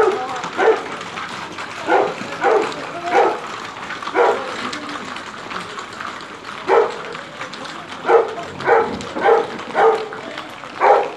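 A dog barking repeatedly: about ten short barks at uneven intervals, with a quicker run of four, about half a second apart, near the end.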